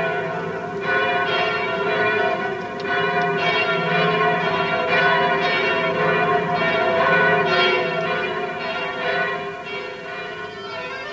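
Church bells pealing, struck about once a second, each stroke ringing on into the next; the peal eases off a little near the end.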